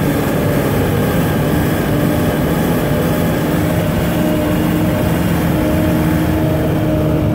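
Hummer H1's turbodiesel engine pulling steadily at highway speed, a continuous drone with road noise as heard inside the cab, while running at full boost with the wastegate shut.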